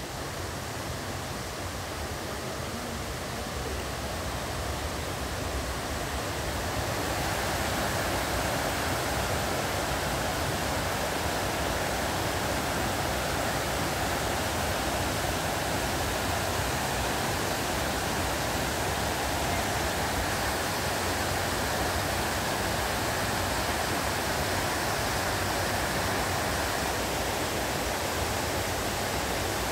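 The Liri river's great waterfall: a steady rush of water pouring over the falls. It grows louder over the first several seconds, then holds even.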